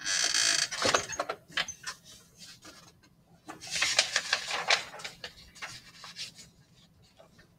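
Paper handled and shuffled, rustling in two bursts: one right at the start lasting under a second, and a longer one of about a second and a half starting about three and a half seconds in, with a few light clicks and taps between.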